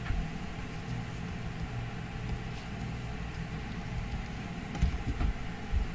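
Steady low background hum, with a few short clicks about five seconds in.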